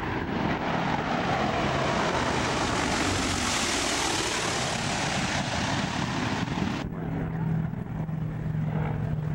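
A propeller-driven water bomber flying low overhead: the engine and propeller noise swells to its loudest about halfway through. It drops off abruptly about two-thirds of the way in, leaving a steadier low drone.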